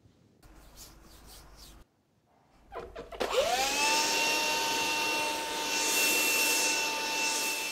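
Cordless handheld vacuum cleaner switched on about three seconds in: its motor spins up with a quick rising whine, then runs at a steady high pitch.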